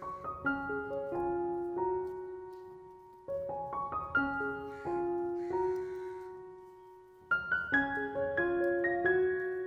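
Background piano music: a gentle melody of single struck notes that fade, in phrases, with a new phrase starting about three seconds in and again about seven seconds in.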